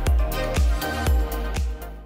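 Outro music with a steady beat, about two kick-drum hits a second over a sustained bass line, fading out near the end.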